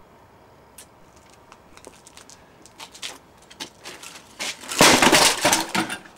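A stacked pile of household junk (a computer monitor, a vacuum cleaner and circuit boards) toppling onto concrete: scattered knocks and rattles build over a few seconds, then a loud clattering crash about five seconds in, lasting about a second.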